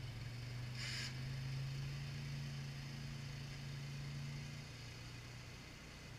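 Polaris Ranger 6x6 UTV engine running as the machine drives off, a steady low hum that fades toward the end, with a brief hiss about a second in.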